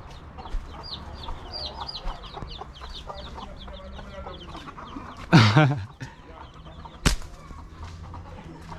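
Chickens calling: a rapid run of high chirps about five a second, then one loud squawk about five seconds in. A single sharp knock follows about seven seconds in.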